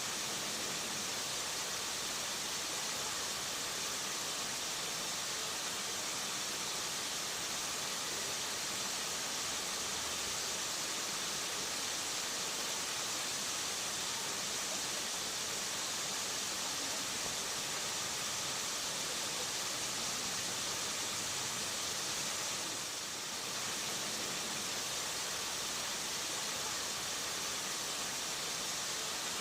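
Waterfall rushing: a steady, even hiss of falling water, dipping slightly for a moment about two-thirds of the way through.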